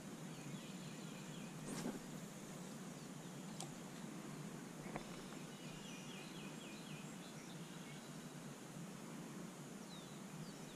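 A bird calling faintly from the creek-side woods, twice, each call a short run of quick repeated notes: one about a second in, one around the middle. Under it is a faint steady hiss, with a few soft clicks.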